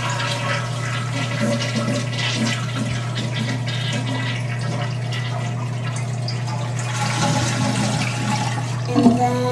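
Toilet flushing with its water supply shut off: water rushes out of the cistern through the flush valve as the tank drains, with no refill.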